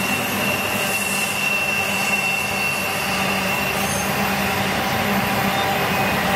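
Freight cars of a BNSF intermodal train, flatcars carrying highway trailers and containers, rolling past at speed: a steady rumble and roar of steel wheels on the rails. A thin high wheel squeal sounds over it and fades out about halfway through.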